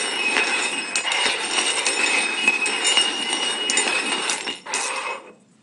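Stainless steel cups shuffled quickly across a wooden floor: continuous sliding and scraping with frequent metallic clinks and knocks. It stops suddenly near the end.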